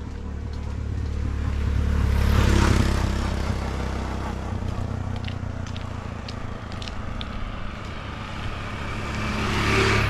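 A motor vehicle passing by, its engine noise swelling to a peak about two and a half seconds in and then fading, with a second vehicle approaching and passing near the end.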